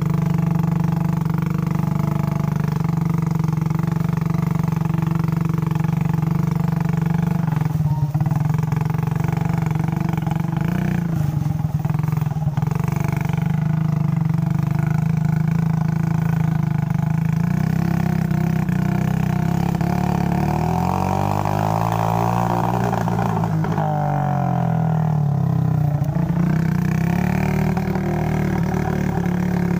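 Small motorcycle engine running under way on a muddy trail. Its note sags and climbs back again about two-thirds of the way through, as the rider eases off and opens the throttle.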